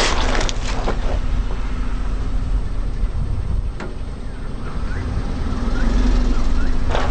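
A car's engine rumbling low as the car rolls slowly over objects, crushing them. Sharp crunching and cracking comes in the first second and again near the end, with a few faint short squeaks in between.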